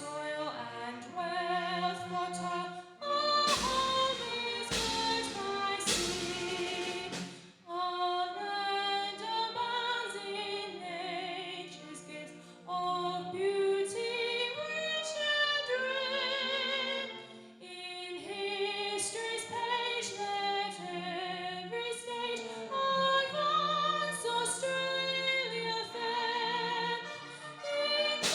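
Voices singing a slow song together, with vibrato on held notes. A few brief noisy bursts come about four to seven seconds in.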